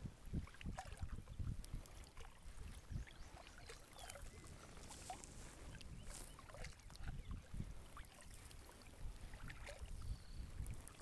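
Kayak paddling on a river: the paddle blades dip and pull, water drips and trickles off them, and small splashes lap at the hull in a scatter of soft clicks. A low rumble of wind on the microphone runs underneath.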